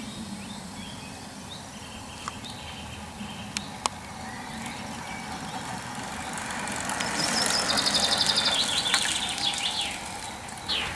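Country-lane outdoor ambience with birdsong: a few short chirps and clicks early on, then a fast descending trill about seven to nine seconds in. Over the trill, a rush of passing noise swells and fades as a racing bicycle goes by.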